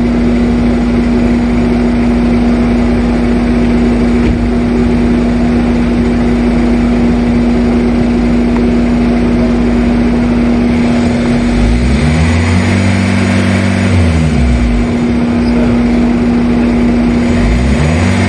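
Mercedes W203 C220 CDI's electric radiator cooling fan (M4/7) running flat out with a loud, steady rush and hum, with a lower hum that slides down and back up in pitch twice in the second half. It runs at full speed because its signal line from the engine control unit is open, the fault logged as P1636-004.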